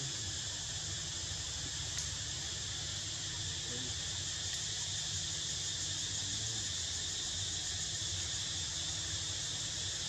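Steady high-pitched chorus of insects, a continuous drone without a break, over a faint low rumble.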